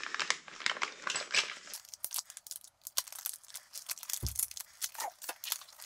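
Clear plastic packaging crinkling and crackling as gloved hands handle a sealed pack of burner electrodes, with one dull thump about four seconds in.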